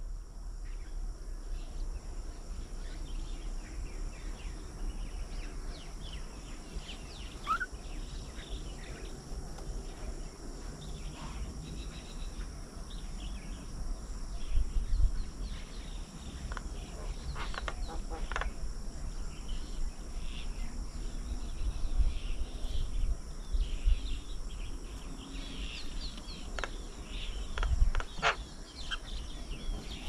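Outdoor birdsong: scattered short bird chirps and calls over a steady high-pitched insect hum, with a low rumble underneath that swells a few times.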